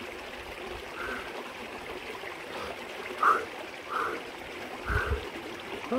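Small stream running steadily into a rock pool, with a few short gurgling blips and a low thump about five seconds in.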